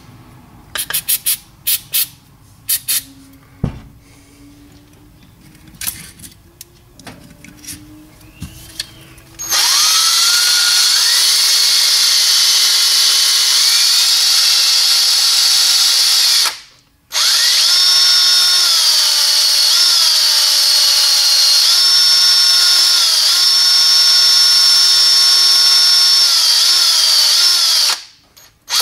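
A few small clicks and knocks of parts being handled. Then, about ten seconds in, a cordless drill starts spinning a spring-loaded brake cylinder hone inside the bore of a drum-brake wheel cylinder. It runs for about seven seconds, stops briefly, and runs again for about eleven more, its motor pitch stepping up and down with the trigger. It is a light hone to clean rust and marks out of the bore of a cylinder that had seized.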